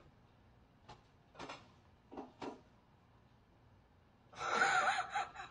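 A few short knocks, three spaced over about a second, the unexplained knocking from behind the air conditioner. Near the end comes a loud burst of about a second with a wavering pitch.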